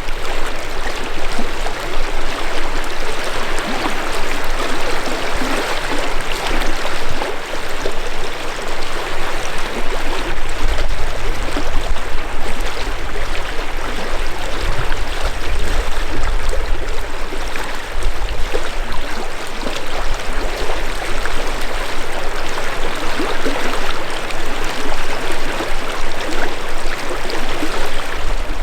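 A river flowing steadily over stones, a continuous rushing of water, with some low rumble now and then.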